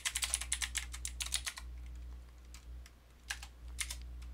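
Typing on a computer keyboard: a quick run of keystrokes in the first second and a half, then a few separate key presses, entering a short terminal command.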